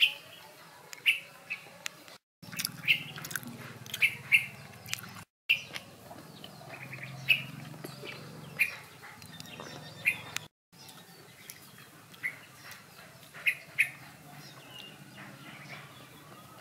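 Small birds chirping in short, sharp, scattered calls, with a few faint clicks between them.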